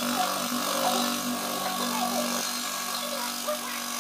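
Porter-Cable scroll saw running with a steady hum, its blade cutting through a thin board.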